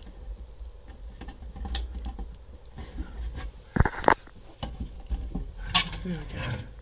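Hands rustling and scraping at a galley locker, with a pair of sharp knocks about four seconds in and a click near the end as the teak-trimmed locker door is unlatched and swung open.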